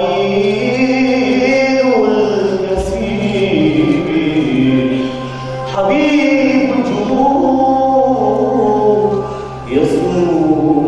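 Choir singing a slow hymn in long held phrases, with short breaks between phrases about six seconds in and again near the end.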